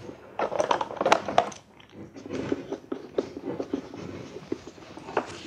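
Wooden screw clamps being turned tight on a violin body as its plate is glued to the ribs: a string of small wooden clicks and knocks, sharper ones in the first second or so, then a quick run of small clicks as the threaded spindles are screwed down.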